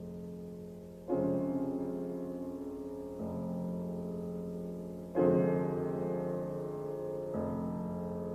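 Slow piano music: sustained chords, a new one struck about every two seconds and left to ring.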